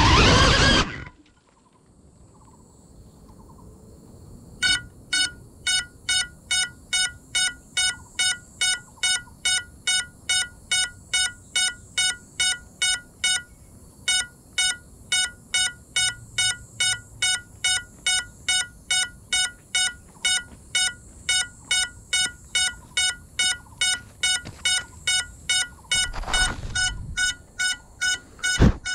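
GEPRC Cinelog 35 cinewhoop's motors whine and cut off about a second in as the drone goes down in the bushes. A few seconds later its lost-model buzzer starts beeping, about two short high beeps a second, to lead the pilot to the downed drone. Near the end a brief rustle and a sharp click come as the drone is handled.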